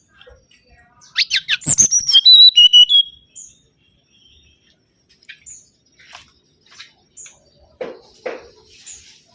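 Mangrove whistler (kancilan bakau) singing: about a second in, one loud phrase of quick falling whistles runs into a few held whistled notes for about two seconds. Only faint scattered chirps and ticks follow.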